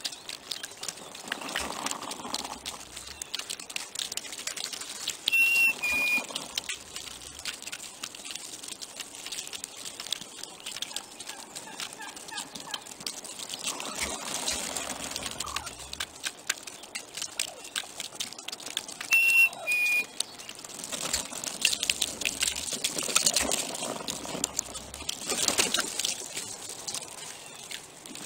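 Wild turkeys feeding on scattered seed and corn in dry straw: a steady stream of small pecking clicks and rustling. A short two-note bird call, a higher note then a slightly lower one, comes twice.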